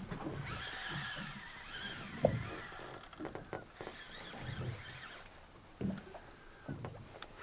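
Spinning reel's drag giving line to a hooked pollack: a wavering squeal over rapid clicking for the first few seconds, with scattered dull knocks through the rest.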